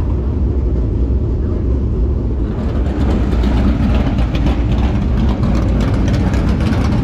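Dirt super late model race car's V8 engine running at low speed as the car rolls off through the pits. Gravel starts crunching about two and a half seconds in.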